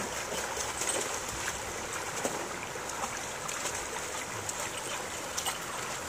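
Creek water flowing over rocks: a steady rushing trickle, with a few faint clicks.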